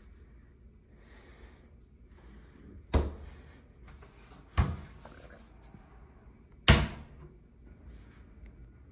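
A bar fridge door and the wooden cabinet doors around it being shut: three sharp knocks, the first about three seconds in and the last the loudest, with light rustling between.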